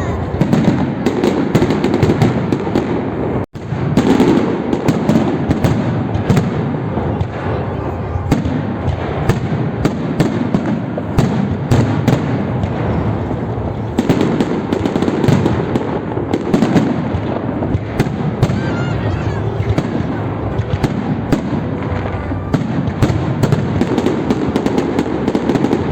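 Fireworks salute: a dense, continuous volley of bangs and crackling, many bursts overlapping.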